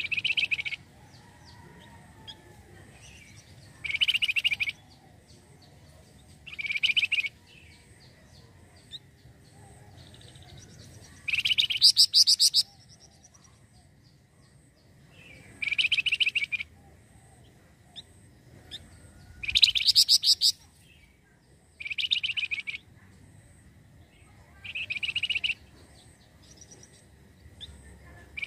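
A flamboyan (wergan) songbird singing. Short, rapid, high-pitched trilled phrases come about every two to three seconds, some louder than others.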